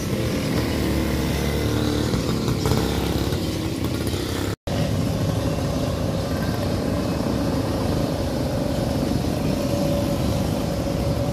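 Road traffic dominated by the motorcycle engines of passing tricycles, a steady running rumble. The sound cuts out for an instant about four and a half seconds in.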